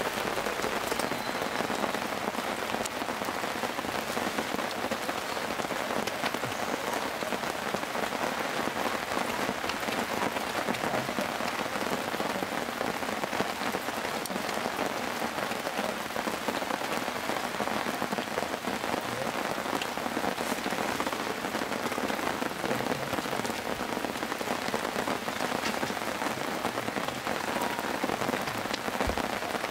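Steady heavy rain falling, an even wash of sound with a few faint ticks of drops.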